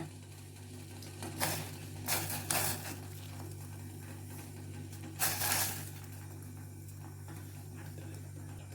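Chopped shallots being added to a pot of water: three short scraping, rustling handling sounds, over a steady low hum.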